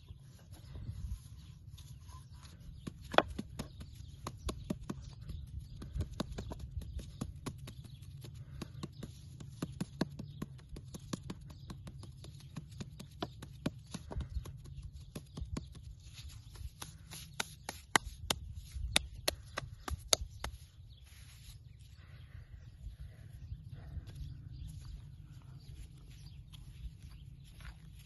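Wooden rolling pin and hands working flatbread dough on a round wooden board: a long run of sharp, irregular knocks and taps that thins out about two-thirds of the way through. Under it runs a low steady rumble.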